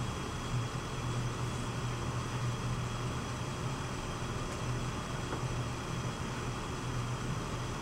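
Steady low hum with a hiss from an electric potter's wheel running while a clay pitcher is shaped on it.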